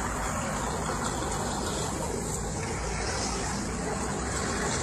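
Engines of amphibious armoured vehicles running steadily as they drive across the sea, a constant noise without breaks.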